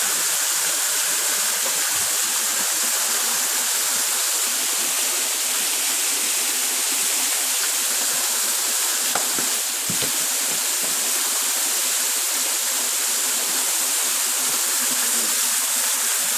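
Waterfall pouring, a steady rushing hiss of falling water.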